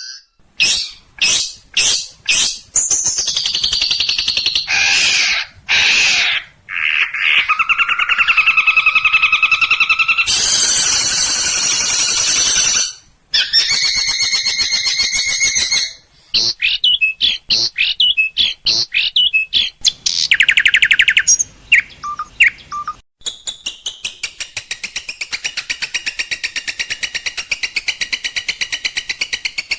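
Long-tailed shrike (cendet) song as used in a bird-training master track: loud, varied calls cut together from several recordings. There are sharp clipped notes, trills, a harsh scratchy stretch in the middle, and a long run of fast repeated notes at the end.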